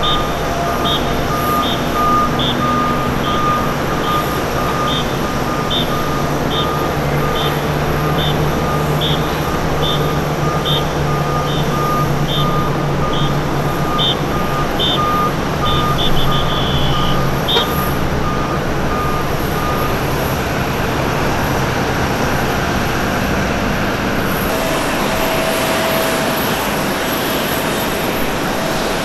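Warning beeper of an aircraft pushback tug, a short high beep about one and a half times a second that quickens into a quick run and stops about two-thirds of the way through, with a lower pulsing tone alongside until a little later. Under it a loud, steady rumble of engines on the apron.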